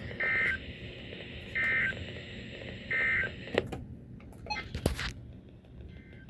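Three short bursts of Emergency Alert System digital data from a NOAA Weather Radio broadcast: the end-of-message code, each burst a brief two-tone warbling buzz, about 1.4 s apart, marking the close of the weekly test. After them come a couple of sharp clicks and a short burst of static.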